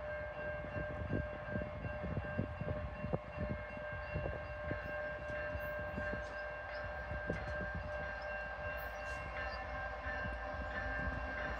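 CN freight locomotive's air horn sounding one long, steady multi-note chord as the train approaches in the distance.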